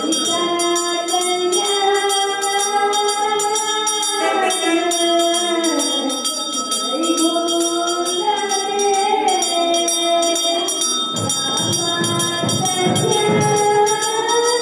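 Devotional music: a slow melody of long, sliding notes. Over it a temple hand bell is rung without pause, as during a lamp offering (aarti).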